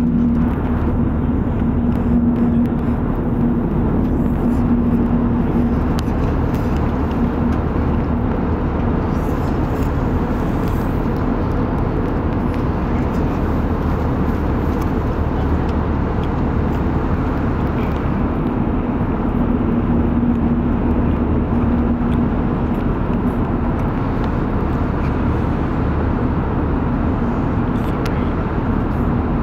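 Steady cabin noise inside an Airbus A320neo airliner: an even, loud hum with a low steady tone that fades for a while in the middle and comes back.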